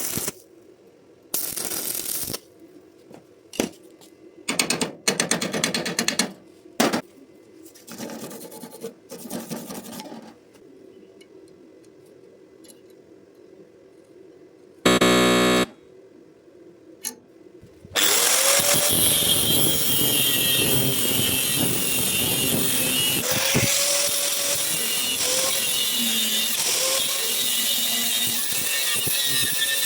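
Several short bursts of noise, then a brief loud buzz, then from a little past the middle a stick-welding arc burning steadily.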